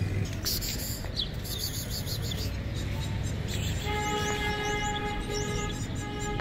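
Outdoor street ambience: a steady low rumble with a few faint high chirps. About four seconds in, a horn-like tone starts and is held at one steady pitch for the last two and a half seconds.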